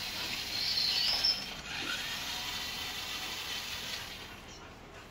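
Remote-control toy backhoe's small electric motor and plastic gears whirring steadily, dying away about four seconds in.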